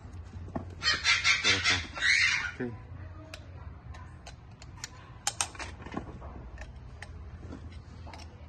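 A chicken calls loudly for about two seconds, a run of quick pulsing notes starting about a second in. Later come scattered light clicks of metal air fittings being handled.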